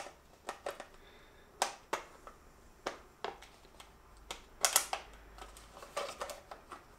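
Hard 3D-printed plastic fuselage parts clicking and knocking together as they are handled and slid into each other along their moulded rail: a scattering of sharp clicks, with a louder quick cluster a little past the middle.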